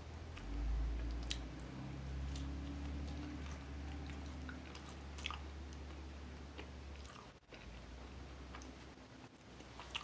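A person chewing a mouthful of meatball sub on garlic bread, with scattered small wet mouth clicks. A low steady hum runs underneath and stops about seven seconds in.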